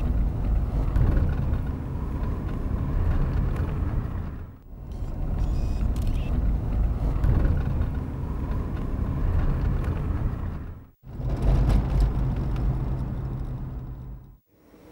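A car driving, its engine and tyre noise heard from inside the cabin as a steady low rumble with a low hum. The sound drops out abruptly three times, about four and a half seconds in, at about eleven seconds and just before the end, then returns.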